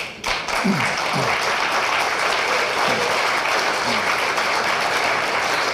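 Audience in a hall applauding, a dense steady clapping that starts abruptly and carries on, with a few short voices calling out during the first few seconds.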